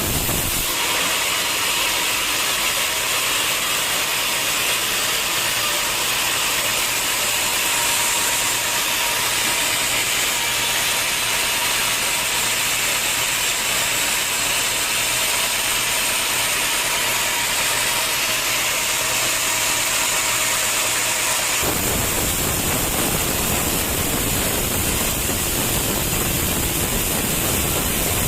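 Sawmill saw running and cutting through wood, a steady mechanical noise mostly in the higher range. About three-quarters of the way through it changes abruptly to a fuller, deeper noise.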